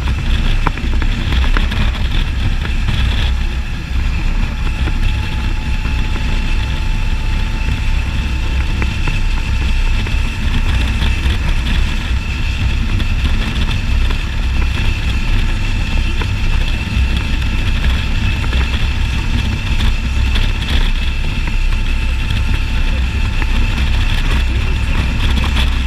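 Can-Am Spyder ST Limited's V-twin engine running steadily while riding, with a deep, even rumble of wind on the microphone.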